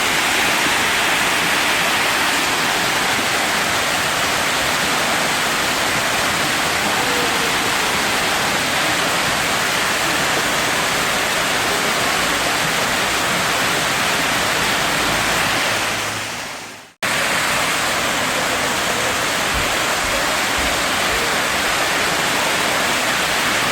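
Steady rushing of falling water. It fades out about seventeen seconds in and cuts straight back in.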